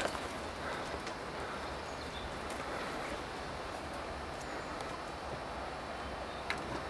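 Steady outdoor noise of a river from a boat, an even wash with no clear pitch, and a faint click near the end.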